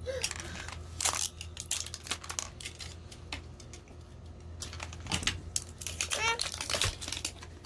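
Thin plastic wrapping being crinkled and pulled off a small toy by hand, in short spells of rustling about a second in and again from about five seconds in.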